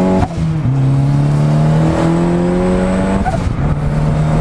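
Turbocharged 1.8-litre Mazda BP four-cylinder (Flying Miata turbo kit) of an Exomotive Exocet heard from its open cockpit on the road. The engine note dips briefly just after the start, climbs slowly, then drops sharply about three seconds in and holds steady.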